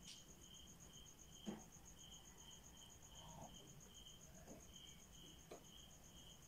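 Faint insect chirping: a rapid, high pulsing trill and a slower, lower chirp repeating steadily, with a single soft knock about a second and a half in.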